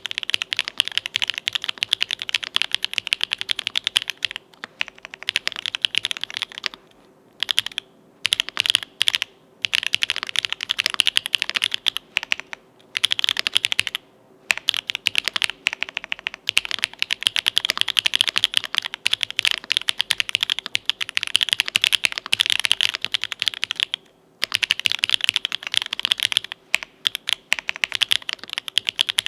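Continuous fast typing on a mechanical keyboard with lubed Owlab Tungsten linear switches on an aluminium plate with GMK keycaps, a dense run of keystrokes broken by short pauses about 7, 12 and 24 seconds in.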